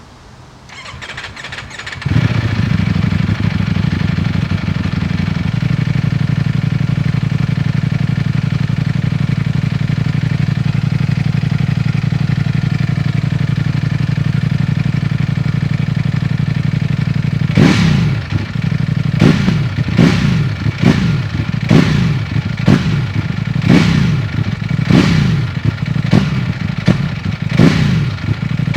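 2019 Ducati Panigale V4S's 1103 cc V4 on its stock exhaust being started: the starter whirs for about a second, then the engine catches and idles steadily. Some 15 seconds later it is blipped in quick throttle revs, each rising and falling sharply, more than a dozen at roughly one to two per second.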